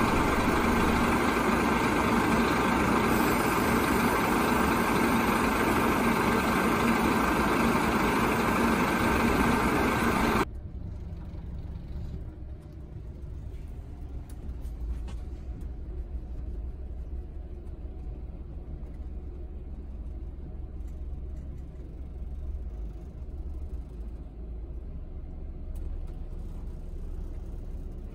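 Cabin noise inside a Scania double-decker coach: a loud, steady rush of road and engine noise while it travels at speed, cutting off abruptly about ten seconds in to a much quieter low engine rumble as the coach moves slowly.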